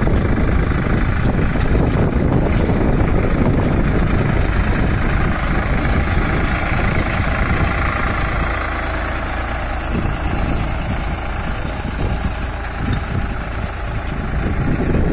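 Solis 5015 4WD tractor's diesel engine running steadily under load as it pulls a two-bottom mouldboard plough through hard black soil.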